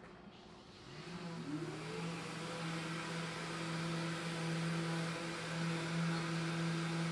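Drill press motor switched on: its hum rises in pitch as it winds up to speed about a second in, then runs steadily.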